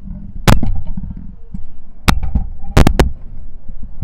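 Sharp knocks and clicks over a low rumble: one about half a second in, one around two seconds, then three in quick succession near three seconds in.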